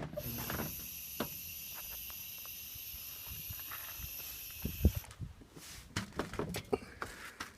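Compressed air hissing steadily from the truck's air system for about five seconds and cutting off suddenly, followed by a few light knocks and clicks.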